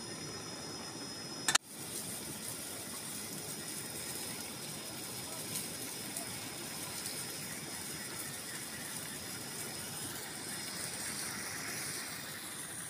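Steady hiss of a portable butane cartridge stove burning under a pan of boiling water. About a second and a half in there is a sharp click and a brief dropout.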